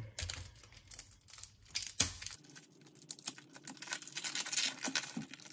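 Tape being slit with a knife and peeled off a silicone mould: a run of crackling and tearing, with one sharp click about two seconds in.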